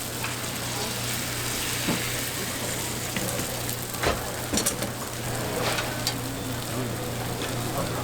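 Bánh xèo (Vietnamese crepe) batter sizzling as it fries in a hot pan, a steady hiss, with a few sharp clicks scattered through it.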